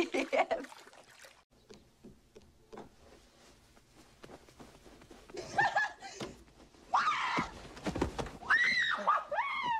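A woman laughing at first, then excited high-pitched squeals and whoops that swoop up and down in pitch, with a dull thump about eight seconds in as she throws herself onto a bed.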